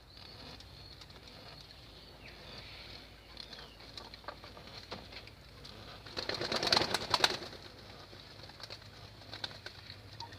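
Domestic racing pigeons heard faintly over a low steady hum, with a louder burst of rapid rustling and fluttering about six to seven and a half seconds in.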